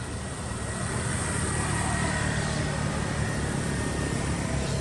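A vehicle engine running, growing louder over the first second and then holding steady.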